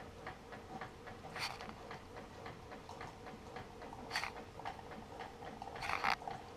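Faint, rapid, regular ticking over a low steady hum from a Keurig brewer working after its brew button is pressed, before the water starts to pour. A few slightly louder clicks come through near the middle and toward the end.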